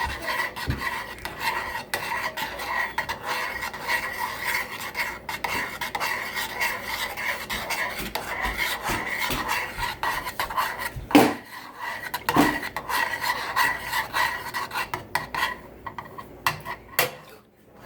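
A utensil scraping around a saucepan, stirring a sweetened condensed milk mixture on low heat as it thickens, with two sharper knocks about eleven and twelve seconds in; the scraping dies down near the end.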